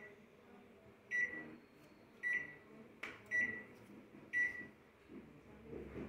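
Samsung convection microwave's keypad beeping as its buttons are pressed: four short high beeps about a second apart, with a sharp click between the second and third.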